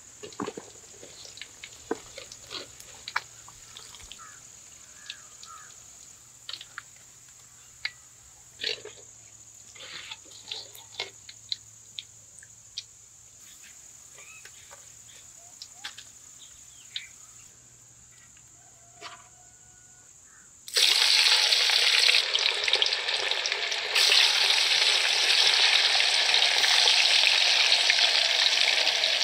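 Light, scattered clicks and taps of a wire-mesh strainer as fried fish are lifted from the oil and tipped into a basket. About two-thirds of the way through, fish going into the hot oil of a deep wok set off a sudden loud, steady sizzle of deep-frying, which carries on with one brief dip.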